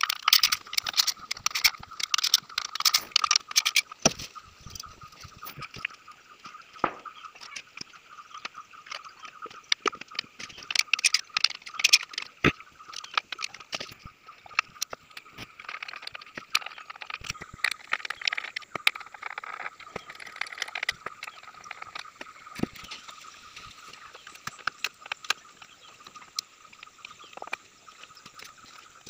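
Scattered clicks, clinks and knocks of hand tools and engine parts being handled on a car engine, over a steady high-pitched background hum.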